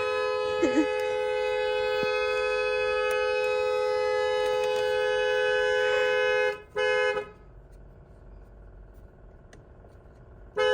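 BMW X6 M's two-note electric car horn blaring steadily, stuck on; it cuts out about six and a half seconds in, gives one short blast, then falls quiet until it comes back on right at the end. The owner blames the newly fitted aftermarket steering wheel: a washer on its horn screw touches the side and shorts the horn contact.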